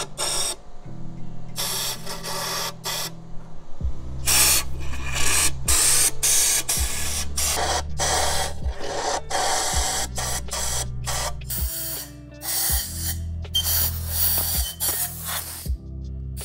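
Repeated short hissing bursts from an air-powered AC flush gun spraying solvent and compressed air into the oil galleys of an engine block, over background music with a steady bass line.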